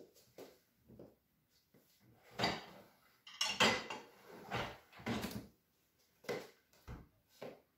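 Plates being loaded into an open dishwasher, clinking and clattering against the racks in a string of separate knocks, loudest from about two and a half to four seconds in.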